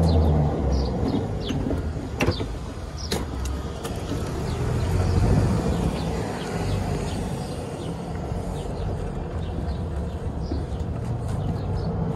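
Golf cart driving along, a steady low rumble of its drive and tyres on the road. There are a couple of sharp knocks about two and three seconds in.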